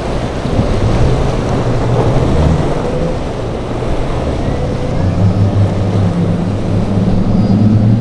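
Outboard motors of a cabin boat running through rough breaking waves. Their low drone comes and goes at first and grows steadier and stronger over the second half, over a wash of surf and wind.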